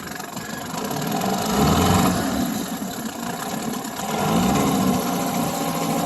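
A Johnson 9.9 hp two-stroke twin outboard motor running at low speed. It gets louder about a second and a half in and again at about four seconds.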